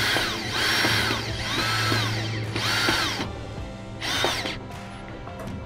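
Cordless drill driving bolts into the swim ladder treads in several short bursts. Each burst spins up and winds down.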